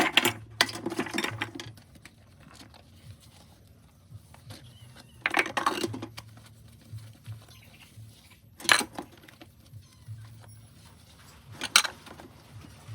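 Dishes being handled and washed by hand at a sink: a few separate bursts of clattering and scrubbing, with sharp clinks of plates or cutlery later on.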